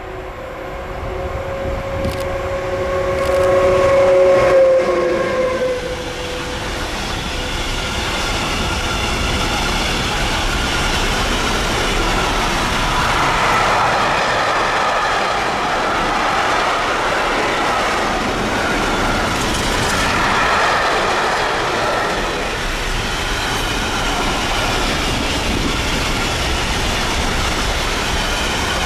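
Electric locomotive passing close by at the head of a long container freight train. A steady two-note tone comes from the locomotive for the first few seconds, loudest at about four seconds in and dipping slightly in pitch as it goes past. After that, the container wagons roll by with a steady rumble of wheels on rail.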